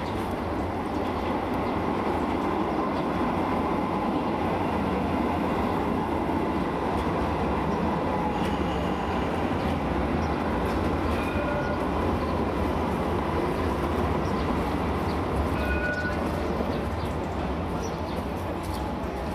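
Alstom Citadis low-floor tram running past on street track: a steady rumble of wheels and motors, with a few brief faint squeals around the middle.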